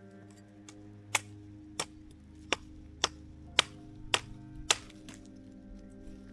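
A series of about seven sharp knocks, roughly two a second, that stop a little before the end, over soft background music with held tones.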